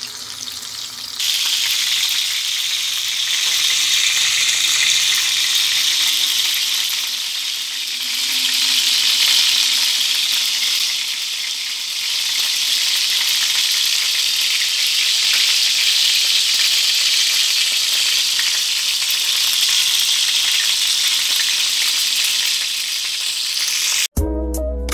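Chicken lollipops deep-frying in a pan of hot oil: a steady sizzle that gets louder about a second in. Music cuts in at the very end.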